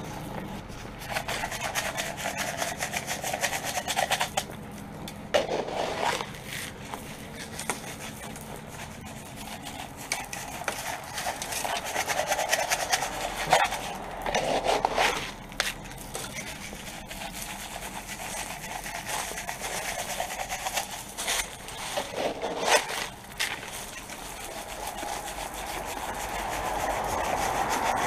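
Salt being tossed by hand onto a concrete walk: a dense gritty patter and scraping of granules that comes and goes in several bursts.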